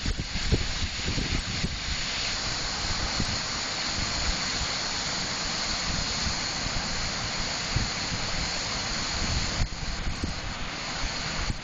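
Water pouring over a dam, a steady rushing noise, with wind buffeting the microphone in the first two seconds and again near the end.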